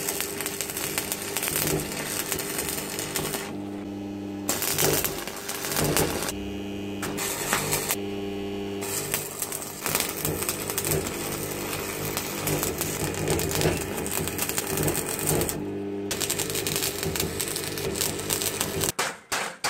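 Stick (MMA) arc welding with a Sealey 140XT arc welder: the arc's steady crackle over a low hum, breaking off briefly about four times as the arc is stopped and struck again. Just before the end it gives way to a fast run of sharp taps.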